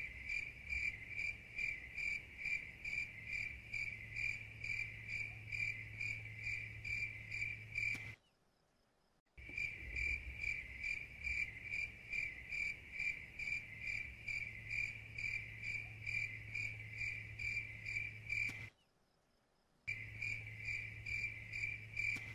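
Stock 'crickets chirping' sound effect for an awkward wait: a steady high chirp repeating about three times a second over a faint low hum. It cuts out twice for about a second each.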